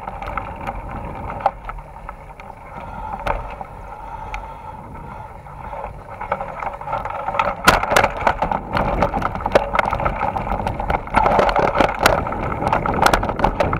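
Mountain bike ridden over a dirt singletrack: tyre noise on dirt with rattling and knocks from the bike going over bumps. It gets louder and busier from about halfway through.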